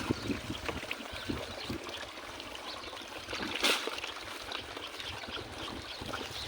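Water pouring and trickling into a goats' drinking trough, with small clicks throughout and one brief louder rush about halfway through.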